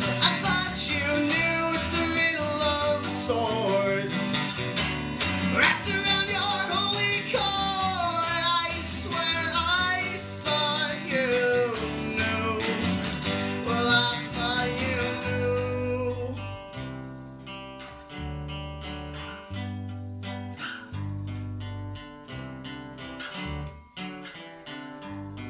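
Acoustic guitar and electric bass playing folk rock, with a sung vocal line over them for about the first fifteen seconds that ends on a long held note. After that the guitar and bass play on alone, slowly getting quieter as the song winds down.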